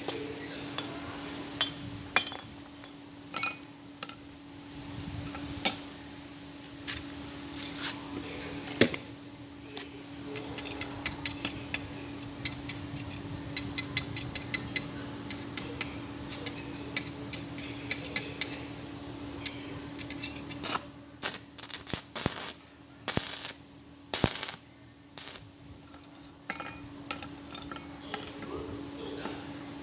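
Scattered metallic clinks and knocks of things being handled, over a steady hum.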